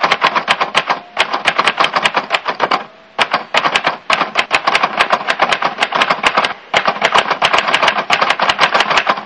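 Typewriter-style typing sound effect: rapid keystroke clicks, about seven a second, with short breaks about a second in, just before three seconds and about six and a half seconds in.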